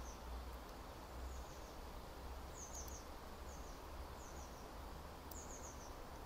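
Faint background bird chirping: short high twitters, two or three at a time, every second or so, over a quiet steady low hum.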